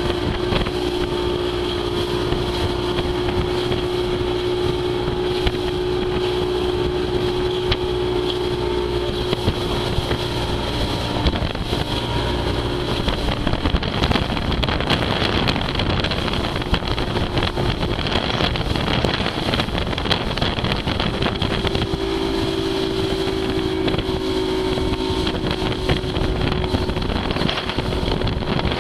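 Motorboat engine running steadily at speed, with rushing water and wind on the microphone. The engine's steady hum fades under the wind and water noise through the middle and comes back later.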